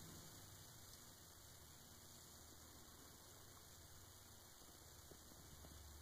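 Near silence: room tone with a faint steady low hum and hiss.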